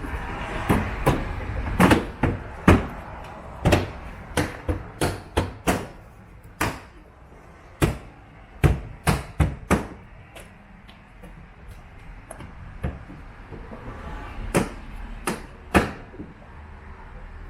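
A run of sharp, irregular knocks and clicks, about twenty in all, close together for the first ten seconds and sparser after, from hands and tools working parts into place on the car.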